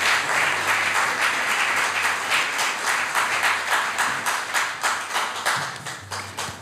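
Audience applauding, the clapping thinning into scattered claps and dying away near the end.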